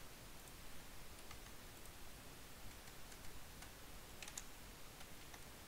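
Faint, scattered clicks of a computer mouse and keyboard over quiet room hiss, two of them close together about four seconds in.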